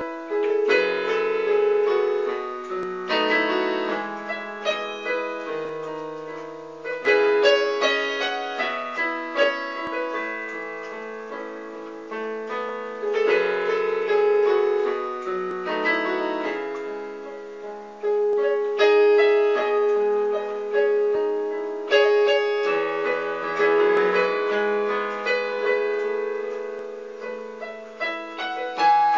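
Portable electronic keyboard played in its piano voice: a slow ballad in chords with a melody on top. Each phrase opens with a loud struck chord that then fades away.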